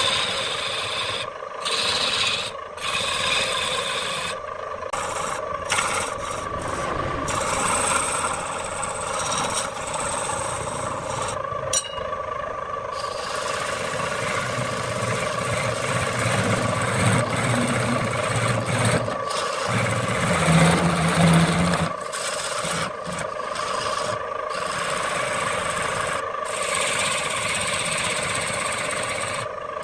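Wood lathe turning a wooden vase blank while a hand-held turning tool cuts it: a continuous scraping hiss of shavings peeling off over the steady hum of the spinning lathe. The cut breaks off for short moments several times.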